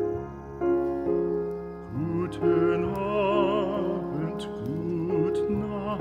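Background music: slow piano chords, joined about two seconds in by a classical, operatic-style singing voice with vibrato.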